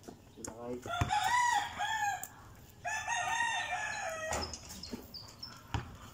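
A rooster crows twice, each crow lasting about a second and a half, with a few short sharp thumps in between and after.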